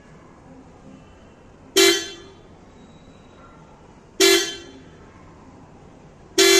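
Maruti Suzuki Brezza's horn sounded three times in short honks, each a fraction of a second long and about two and a half seconds apart, with the last one starting near the end.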